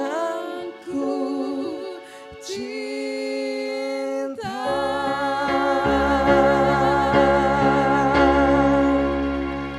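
A man and a woman singing a slow pop duet in Indonesian into microphones over electronic keyboard. About four and a half seconds in, the accompaniment fills out under one long held note with vibrato.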